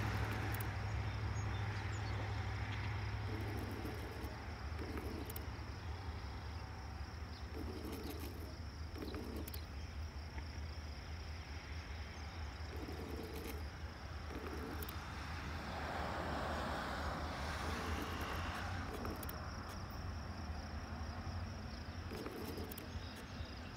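Outdoor ambience: insects trilling steadily over a low rumble, with a few soft bird-like sounds now and then.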